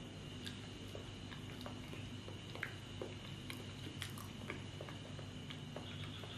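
Quiet chewing and mouth noises of someone eating a ripe banana, with scattered small clicks over a steady low hum.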